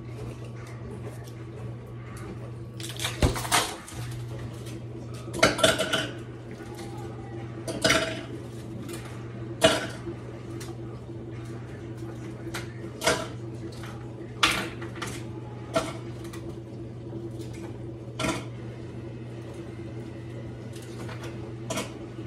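Dishes and cutlery clattering as they are handled and set down at a kitchen counter, in irregular clinks and knocks a second or a few seconds apart, over a steady low hum.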